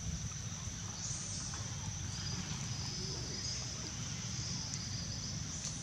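Outdoor ambience: a steady high-pitched insect drone over a low background rumble.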